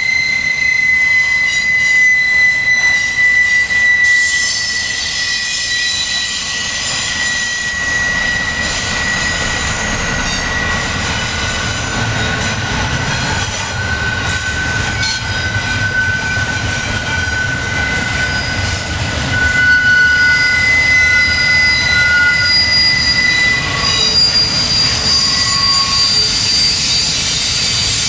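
Double-stack container cars of a freight train rolling past, their steel wheels squealing in long, high, steady tones that shift pitch now and then, over the continuous low rumble of the cars on the rails.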